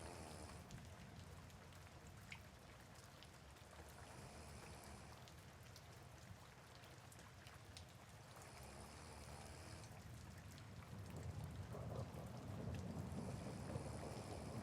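Soft rain falling steadily, with a person snoring slowly; one drawn-out snore swells up near the end.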